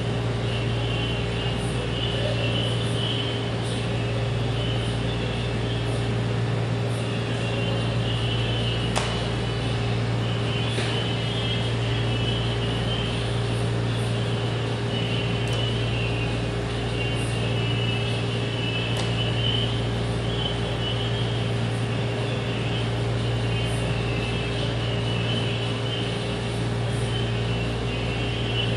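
Steady low mechanical hum with a hiss over it, unchanging in level, as from a running room appliance. A few faint sharp clicks sound over it, spread across the stretch.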